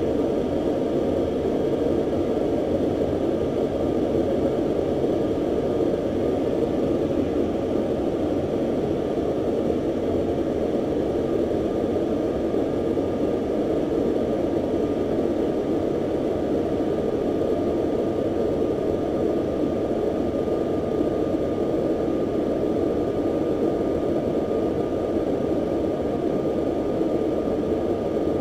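Steady rushing drone inside a U-2 reconnaissance jet's cockpit in flight: jet engine and airflow noise heard through the canopy, with a faint steady whine above it.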